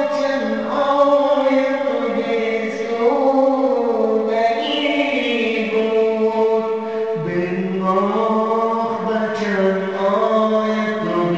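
Voices chanting a slow devotional song, with long held notes that slide slowly between pitches.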